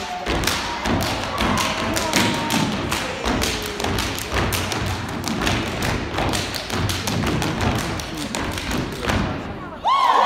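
Step team stepping: a fast rhythm of foot stomps, hand claps and body slaps on a wooden stage. Near the end the stepping stops and the audience breaks into whoops and cheers.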